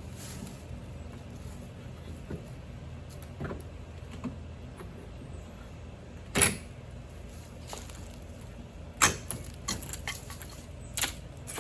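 Demolition work on a screen porch's doggy door: three loud sharp knocks or cracks, a little past halfway, around three-quarters through and near the end, with a few lighter taps between, over a steady low hum.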